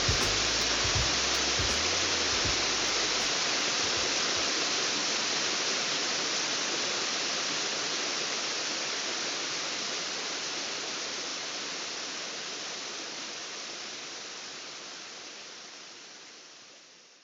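A steady rushing noise, like rushing water, fading slowly to silence. Low beat thumps from the music drop out about three seconds in.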